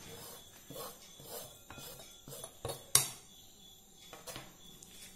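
Chopped green chillies scraped and tapped off a plastic cutting board into a glass bowl: a series of soft scrapes and taps, with one sharp knock about three seconds in and a lighter one a second later.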